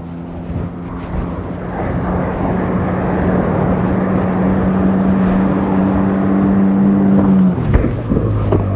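Fishing boat's engine running under way, with wind and water rushing past. The engine note rises a little about two seconds in, then drops sharply near the end as the throttle is eased back.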